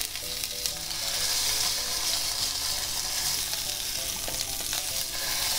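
Bonito fillet searing in hot oil in a frying pan over high heat: a steady sizzle.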